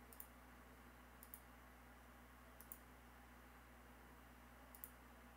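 Near silence with four faint computer mouse clicks, each a quick pair of ticks, spread a second or more apart.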